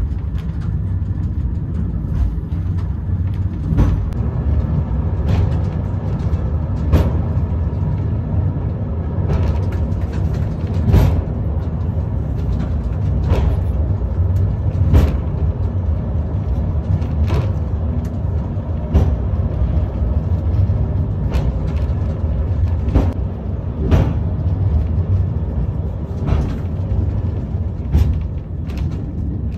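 Monte Brè funicular car running along its track, heard from inside the car: a steady low rumble with a sharp knock about every two seconds.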